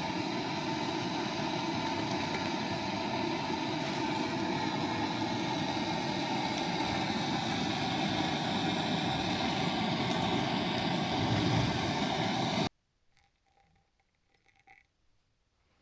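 A vehicle running steadily, with an even rumble and faint steady tones, that cuts off abruptly about three seconds before the end, leaving near silence.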